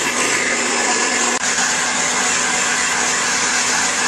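Handheld hair dryer running steadily, blowing on a cat's fur: an even rush of air over a low motor hum, with a momentary dip about a second and a half in.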